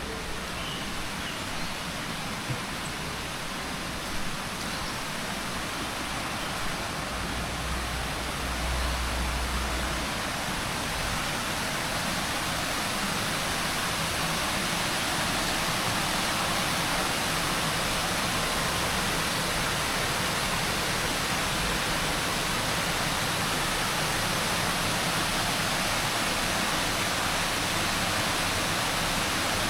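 Rushing water of a stream, an even steady rush that grows louder over the first dozen seconds or so and then holds.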